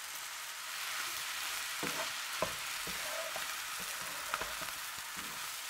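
Fried rice sizzling in a hot frying pan while a spatula stirs and turns it, scraping and tapping against the pan now and then. The sizzle picks up slightly about a second in.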